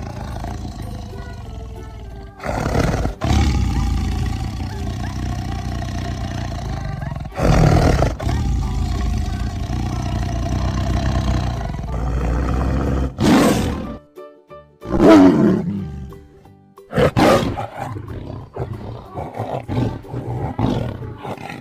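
Tiger roaring and growling, with several loud roars, over background music.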